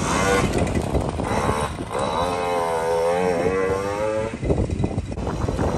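50cc mini dirt bike engine revving, its pitch rising and falling, with one long rev from about two seconds in to past four seconds.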